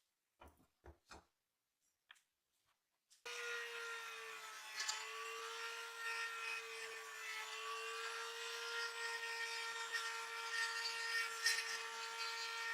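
A few light knocks, then about three seconds in a power tool starts and runs steadily, a constant motor hum with a rough scraping over it as it works against a surface.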